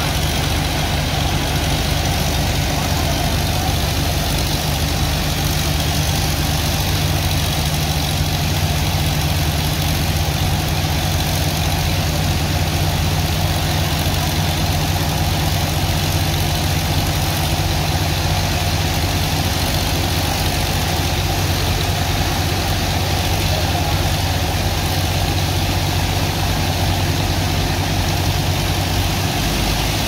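The engine driving the sand dredger and water pump runs at a steady speed, a constant low hum. Over it lies the hiss of a high-pressure water jet blasting sand into slurry.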